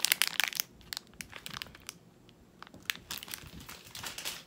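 Crinkling of a plastic candy wrapper being handled, densest and loudest in the first second, then lighter scattered crackles and a second spell of rustling near the end as hands move through the box's shredded paper filler.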